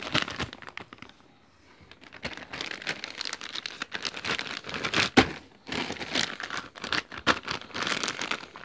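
Plastic packaging bag holding a saw chain crinkling and rustling as it is handled, in irregular crackles, with a brief lull about a second in.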